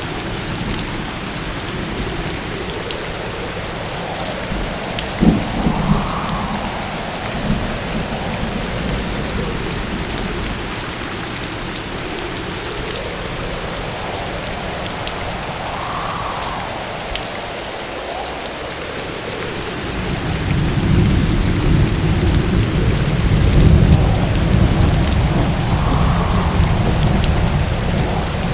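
Heavy rain falling steadily in a thunderstorm, with a couple of sharp cracks about five seconds in and a long, deep thunder rumble building up about twenty seconds in. A faint whistle rises and falls about every ten seconds over the rain.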